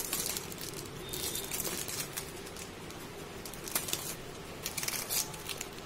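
Plastic snack wrappers crinkling as packets are picked up and moved about, in soft, scattered crackles.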